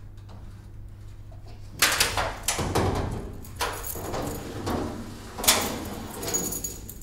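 A large metal sliding door rolling open on its overhead track: it starts about two seconds in with a loud rumbling, clattering scrape, with a sharp clank about five and a half seconds in.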